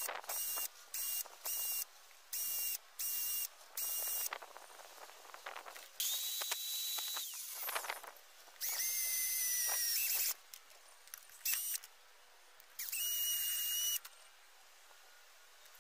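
Cordless drill boring small holes through a thin metal plate, run in many short trigger bursts, each a high motor whine that stops abruptly. Later come three longer runs, about six, nine and thirteen seconds in; the first winds down in pitch as it stops.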